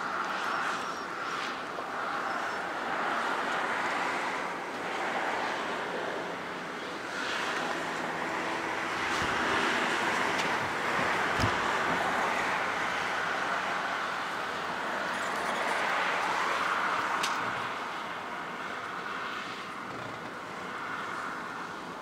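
Cars passing on a residential street, their tyre and engine noise swelling and fading, with some wind on the microphone. A single short knock about halfway through.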